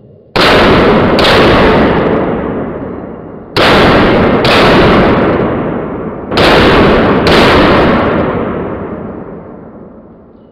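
Handgun shots fired in three quick pairs, six in all, each pair about three seconds after the last. Every shot rings on in a long, echoing decay.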